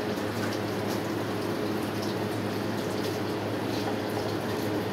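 Steady rushing hiss with a constant low hum underneath, unchanging throughout.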